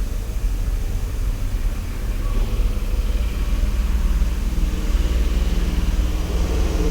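A motor engine running steadily with a low rumble, growing slightly louder toward the end.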